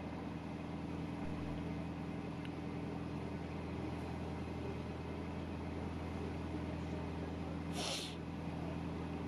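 Narrowboat engine running steadily under way, a low even hum. A brief hiss comes near the end.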